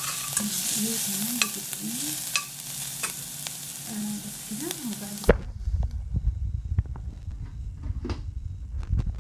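Chopped onion sizzling as it fries in a stainless-steel pot, with a spoon stirring and clicking against the metal. About five seconds in the sizzle cuts off abruptly, giving way to low muffled rumbling and scattered knocks.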